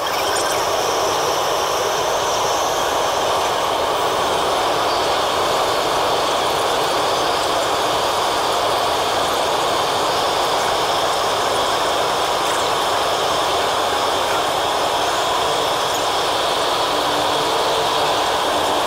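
MTR South Island Line train running through a tunnel, heard inside the car: a steady, loud rushing noise.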